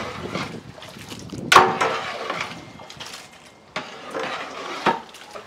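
Long-handled metal ladle stirring chunks of meat in thick masala in a large metal pot: wet scraping with sharp knocks of the ladle against the pot, the loudest about a second and a half in, with two more near four and five seconds.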